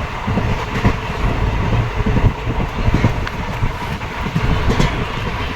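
Train moving along the track: a steady low rumble with irregular knocks and rattles.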